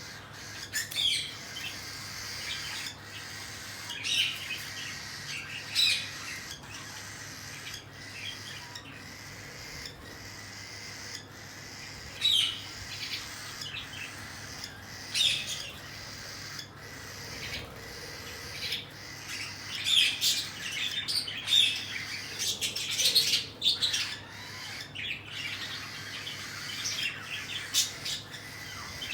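Cockatiels giving short, harsh squawks and chirps, repeated every second or few seconds, over a low steady hum.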